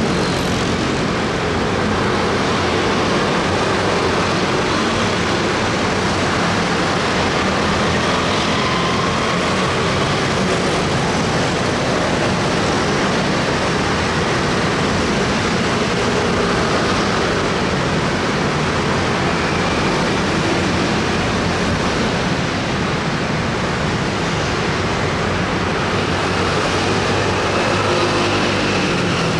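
Heavy traffic of many motor scooters passing at close range: a steady mass of small engines running, with single scooters' engine notes rising and falling as they go by.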